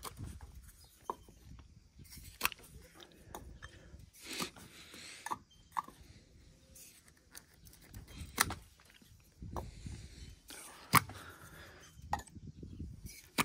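Lug nut covers being pulled off a semi truck's aluminum steer-axle wheel: scattered clicks and knocks at uneven intervals, the loudest about eleven seconds in.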